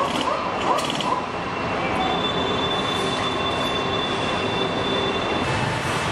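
Assembly-line factory machinery: a steady mechanical hum and hiss. There are a few short squeaks in the first second, and a thin high-pitched whine comes in about two seconds in and stops near the end.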